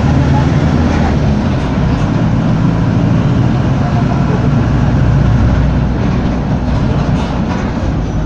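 Mercedes-Benz OF-1722M city bus under way, heard from inside the passenger cabin: its diesel engine running with steady road rumble, and a few knocks from the body near the end.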